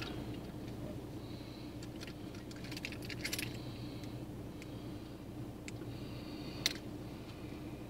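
Keys jangling briefly about three seconds in, then a single sharp click near the end, over a steady low hum inside a stationary car.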